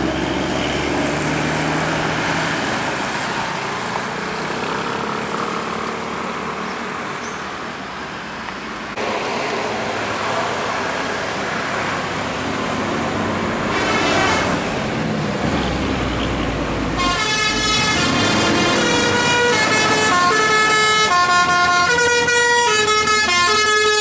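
Tour bus engines and tyre noise as the buses pass, with a brief rising siren-like glide about fourteen seconds in. From about seventeen seconds in, a bus's Basuri telolet musical air horn plays a quick melody of bright stepped notes.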